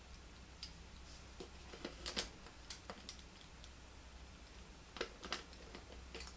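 Plastic puzzle-cube pieces clicking and clattering faintly as they are handled and pushed into a partly assembled 3x3x6 cube, with a cluster of clicks about two seconds in and another about five seconds in.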